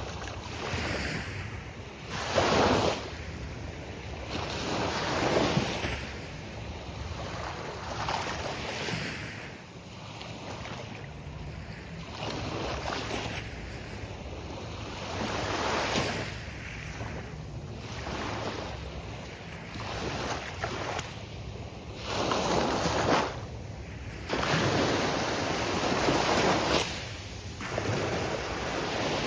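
Ocean surf: waves breaking and washing onto the beach one after another, each one a swelling rush of noise every few seconds, with a steady wash between them and some wind on the microphone.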